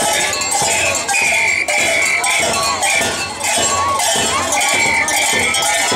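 Bells clanking in a steady beat of about two strokes a second, over crowd noise and high sustained tones.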